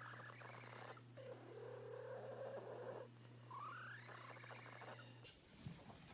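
Faint domestic cat purring and making long, low, drawn-out vocal calls, two of them ending in a rising chirp, over a steady low hum. The sound cuts off about five seconds in.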